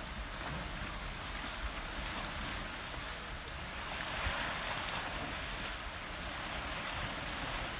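Ocean waves washing against the base of a rocky sea cliff, a steady surf wash that swells near the middle, with wind rumbling on the microphone.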